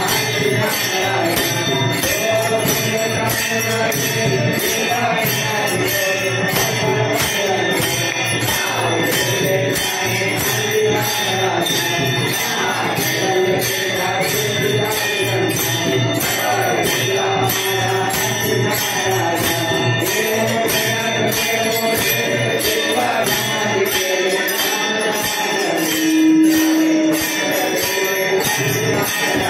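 Devotional music with jingling percussion keeping a steady beat under a wavering melody line, with a louder held note near the end.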